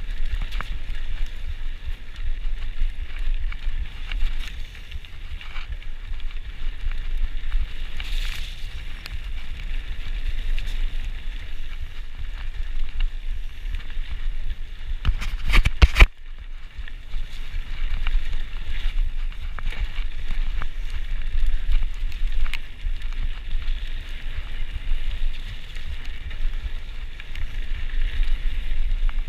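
Cube Stereo full-suspension mountain bike rolling fast down a dirt singletrack: a steady rumble of tyres on dirt and wind across the microphone, with the bike rattling over the ground. A burst of loud knocks comes about halfway through.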